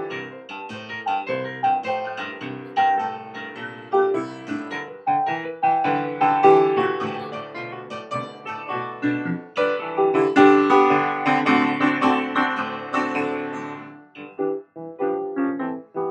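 Piano music, notes played in a flowing, continuous line, with a brief pause about 14 seconds in before it resumes.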